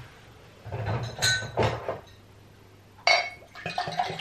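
A drinking glass clinks twice, a ringing chink at about a second in and a sharper one at about three seconds. Near the end, water begins pouring and gurgling from a large plastic bottle into the glass.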